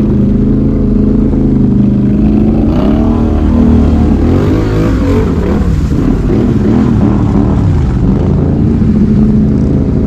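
V-twin Can-Am ATV engine running loud under throttle through mud holes. Its pitch rises and falls repeatedly in the middle as the throttle is worked, then it settles to a steadier drone near the end.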